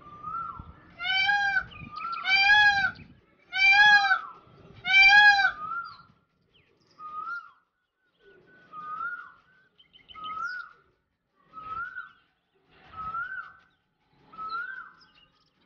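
Indian peafowl calling: four loud, ringing calls in quick succession, about a second and a quarter apart. After them a fainter, shorter call repeats at a similar pace.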